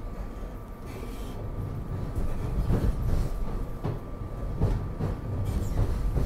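Regional rail passenger car running along the track, heard from inside the car: a steady low rumble of wheels on rail with a thin steady whine. From about two seconds in it grows louder, with a run of wheel clacks over rail joints.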